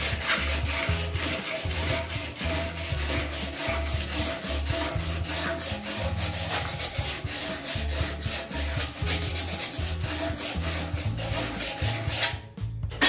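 Sandpaper rubbed back and forth on a fan coil unit motor shaft in rapid, continuous strokes, freeing a blower wheel hub that is stuck too tight to slide off; the rubbing stops near the end.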